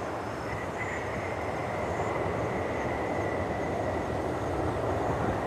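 Boeing 747-400's Pratt & Whitney PW4056 engines running on the landing rollout just after touchdown: a steady rumble that slowly grows louder, with a thin steady whine from about half a second in.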